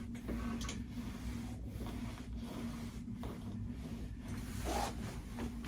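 Faint rubbing and rustling of hands, hair and clothing as a patient's head and neck are moved through their range of motion on a treatment table, over a steady low hum.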